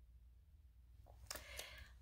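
Near silence: room tone with a steady low hum, and a few faint brief noises in the second half.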